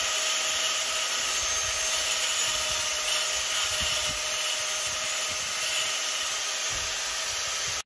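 Electric power tool running steadily while cutting through a pumice-concrete (bims) board along a marked line.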